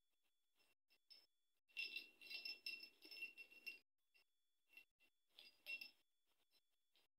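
Faint jingling and clinking of a dangling cat wand toy as a kitten bats at it. A longer run of jingles comes about two seconds in and a shorter one near the end.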